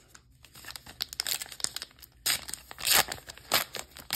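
Foil booster-pack wrapper crinkling and being torn open by hand. A quick run of crackles starts about a second in, with the loudest tearing bursts a little past the middle.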